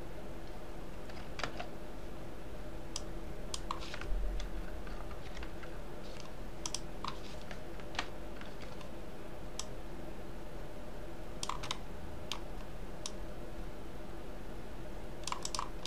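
Irregular, scattered clicks of a computer mouse and keyboard, with a slightly louder cluster about four seconds in, over a steady faint hum.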